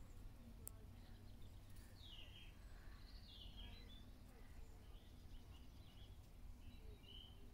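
Near silence: faint outdoor ambience with a low steady rumble and a few soft, short bird chirps scattered through it.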